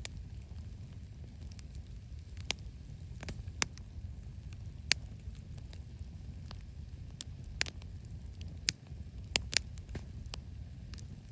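Wood fire crackling, with sharp irregular pops every second or so over a low steady rumble.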